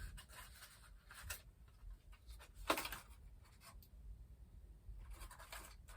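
Light handling noises of small plastic gear being worked by hand: scattered faint clicks and rubbing, with one sharper click about two and a half seconds in.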